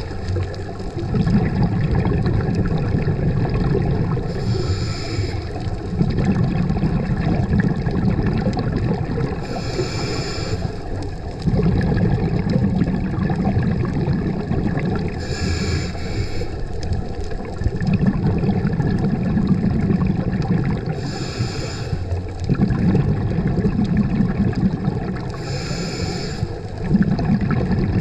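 Scuba diver breathing through a regulator underwater: a short hiss on each inhale, then a low bubbling rumble of exhaled air for about four seconds, repeating about every five seconds, five breaths in all.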